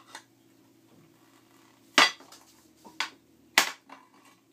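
Steel pliers clacking against the nut and aluminium housing of an LED flood light as the nut is worked loose: a few sharp metallic knocks, the loudest about two seconds in and again just past three and a half.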